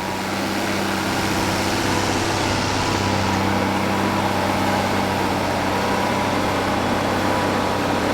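Ford TW-25 tractor's six-cylinder turbo diesel engine working steadily under heavy load, pulling a seven-furrow plough at about 2,000 rpm. It grows a little louder in the first second, then holds an even, steady note.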